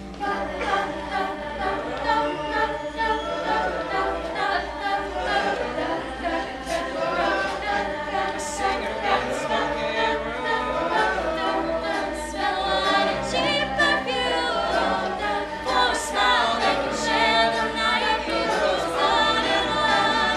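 Show choir of boys' and girls' voices singing together.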